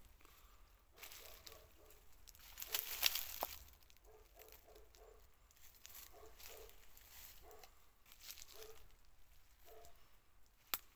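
Dry leaves and brush rustling and crackling as someone moves through the undergrowth, loudest about three seconds in, with a sharp click near the end. Faint short animal calls repeat in quick runs in the background.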